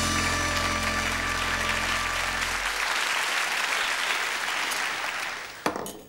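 Audience applauding over the last held chord of music. The chord stops about two and a half seconds in, and the applause then dies away near the end, with a sharp click just before it ends.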